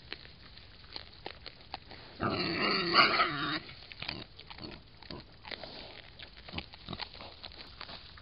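Wild boar giving one loud call lasting about a second and a half, a little over two seconds in. Light rustling and clicks of the boar moving through dry straw run before and after it.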